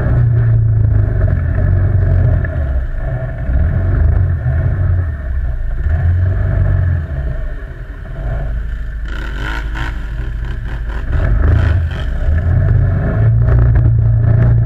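ATV quad bike engine running under load off-road, the throttle rising and falling, with the engine easing off about eight seconds in. A brief rushing hiss comes in around nine seconds.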